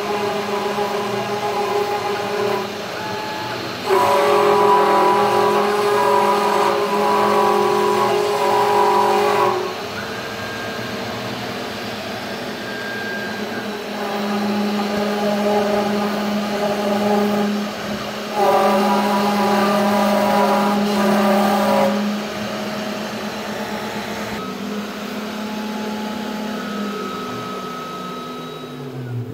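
CNC 3040 router V-carving plywood: the spindle runs while the stepper motors whine through the carving moves, the pitch and loudness changing in sections of a few seconds from one move to the next. Near the end a low tone falls away.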